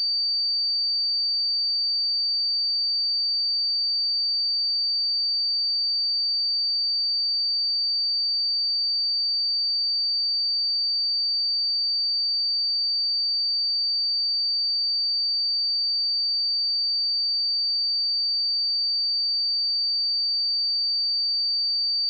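Pure sine-wave test tone at 4617 Hz, a single high-pitched steady whistle held at constant level.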